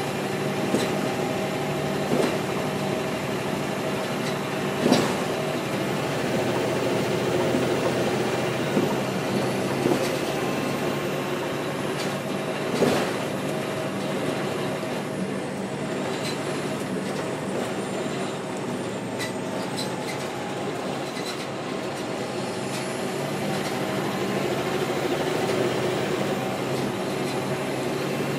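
The Caterpillar C-13 ACERT diesel engine of a NABI 416.15 transit bus running steadily, with several sharp knocks scattered through the first half.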